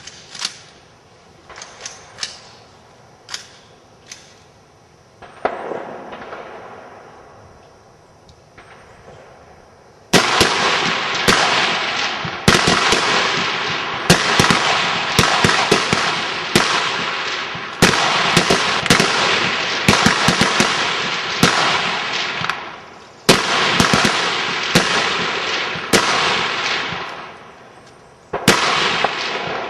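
Rifles fired by many shooters along the firing line of a high-power rifle match. At first there are a few scattered cracks, then from about ten seconds in a dense string of shots, close together and overlapping, each echoing away.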